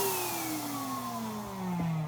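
A 3D-printed mini air horn's note sliding steadily down in pitch and fading as it winds down, with a fainter higher tone falling alongside it.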